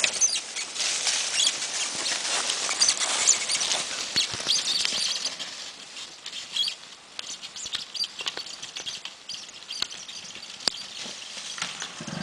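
Dry fallen leaves crackling and rustling, with many scattered sharp clicks, loudest in the first five seconds and then fainter.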